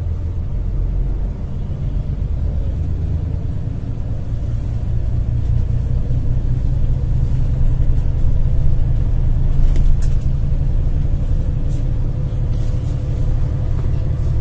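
Steady low rumble of a vehicle's engine heard from inside the vehicle as it drives along.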